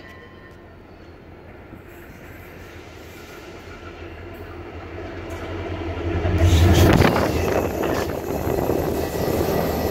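Trains passing close by on the tracks: a rumble of wheels and motors that swells steadily, loudest about seven seconds in as a passenger train runs in right alongside the platform.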